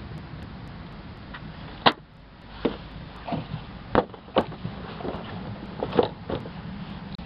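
Rummaging through discarded boxes and items: a series of sharp knocks and clatters, the loudest about two seconds in and again around four and six seconds, over a low steady hum.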